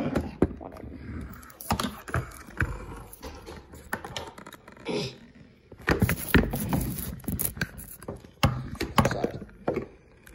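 Handling noise on a phone's microphone: irregular knocks, taps and rubbing as the phone is picked up, moved about and propped against other objects, with a louder stretch of scraping and bumping about six seconds in.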